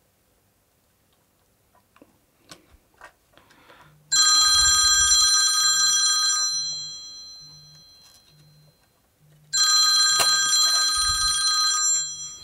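A telephone bell rings twice, each ring lasting about two and a half seconds before dying away, with a gap of about three seconds between them. A few light clicks of small parts being handled come before the first ring.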